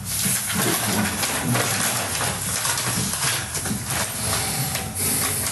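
A man's voice making wordless, breathy vocal sounds over a steady hiss.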